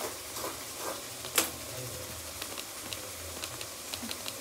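Onions frying in hot oil in a pan: a steady sizzle with small scattered pops and crackles, and one sharp clink about a second and a half in.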